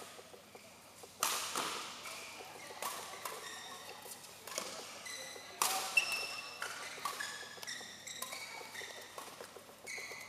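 Badminton rally: rackets strike the shuttlecock with sharp smacks at irregular intervals, the loudest about a second in and about six seconds in. Between shots, players' court shoes give short high squeaks on the hall floor, and the hits echo in the large hall.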